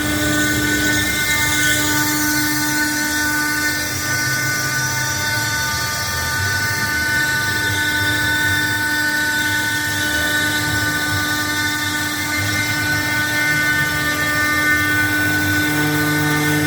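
CNC milling machine's high-speed spindle cutting marble: a steady whine made of several held tones over continuous rough grinding noise.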